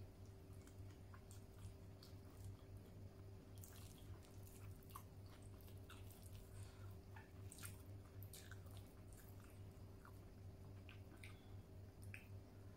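Faint close-up sounds of a person chewing food, with many small, irregular wet clicks from the mouth.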